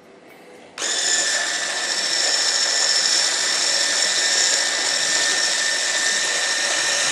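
MegaWise 800-watt immersion hand blender fitted with its milk-frother attachment, switched on about a second in and running steadily with a high whine as it froths cream, whipping air into it.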